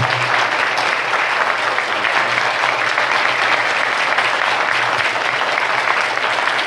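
Audience applause: a roomful of people clapping steadily.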